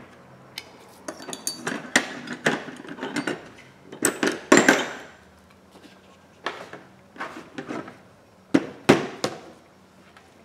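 Hands handling a replacement iPhone screen and its plastic packaging tray: irregular bursts of light clicks, taps and plastic rattling, the loudest cluster about four to five seconds in and another near the end.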